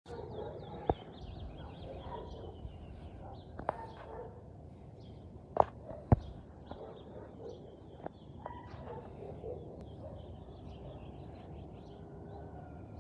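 Birds chirping over a low steady outdoor background, with a few sharp clicks or knocks; the two loudest come about half a second apart a little past the middle.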